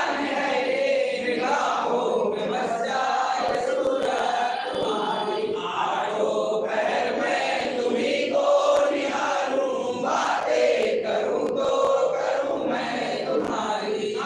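A group of many voices chanting and singing a Hindu devotional hymn together in unison, as in a temple aarti.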